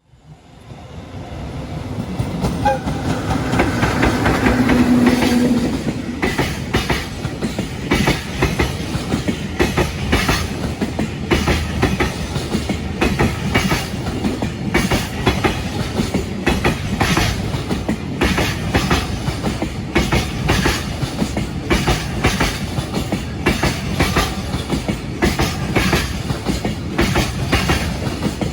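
Freight train approaching and running past, its wheels clacking over the rail joints in a steady, repeating clickety-clack from about six seconds in.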